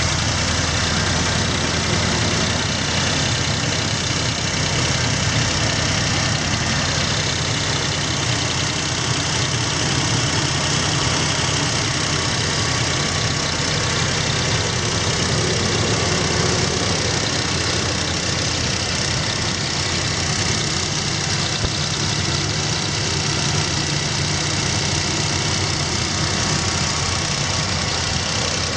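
UAZ Patriot engine idling steadily with a knock from under the hood, which the owner suspects comes from the timing chain tensioner.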